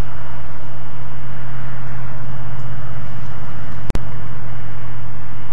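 Steady low hum and hiss with one sharp click about four seconds in.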